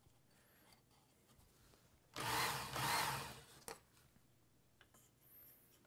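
Work Sharp Ken Onion Edition belt sharpener's motor and abrasive belt run briefly, about two seconds in, for about a second and a half, the pitch rising and falling twice, followed by a sharp click.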